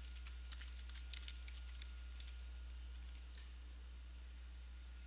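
Faint computer keyboard typing a short word: a quick run of light key clicks over the first three seconds or so, thinning out after that. Under it runs a steady low electrical hum.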